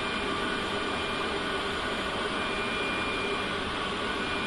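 Steady cockpit noise of a Fokker 100 airliner in flight: an even rush of airflow and engine and air-conditioning hum, with a faint high steady tone.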